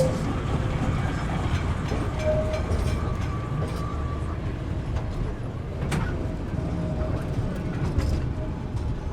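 Vintage KM tram motor car hauling a KP trailer, rolling on the rails: a steady low rumble with wheels clacking over rail joints and a sharp click about six seconds in.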